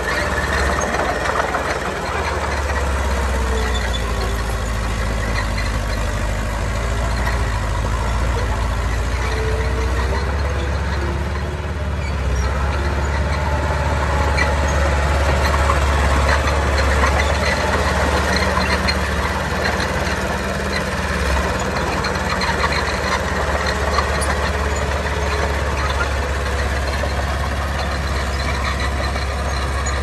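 Diesel engines of heavy earthmoving machinery, a small bulldozer and dump trucks, running steadily with a strong low rumble and only slight changes in level.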